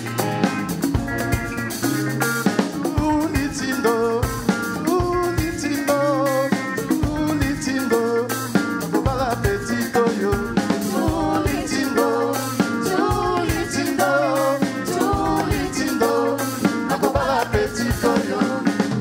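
Congolese rumba played by a band: quick melodic guitar lines over a drum kit and bass keeping a steady dance beat.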